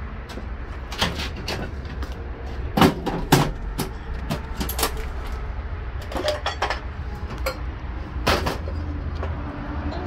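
A series of sharp knocks and thumps, about six, from the small inflated tyre on its steel rim being handled and set down on paving stones. The loudest come about three seconds in and again near eight seconds, over a steady low rumble.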